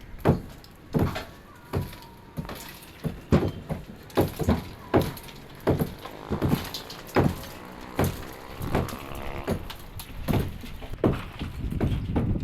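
An irregular series of sharp knocks and thuds, roughly one or two a second, from work on precast concrete slabs.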